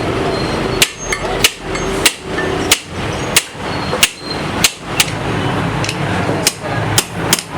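Hammer striking metal: about eleven sharp blows at a steady pace of roughly one every half to two-thirds of a second, with a pause of about a second and a half partway through. A steady hum runs underneath.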